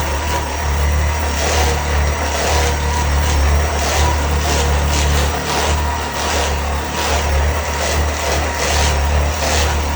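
A handheld electric massager running steadily with a constant low hum while it is worked over tight back muscles.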